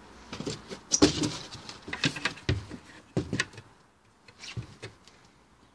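Irregular knocks, clatters and rustles of a plastic hard hat and gear being handled close by, loudest about a second in, with more knocks around two and three seconds and a last few near the end.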